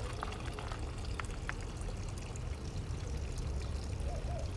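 Water trickling steadily among the stones of a small garden fountain basin.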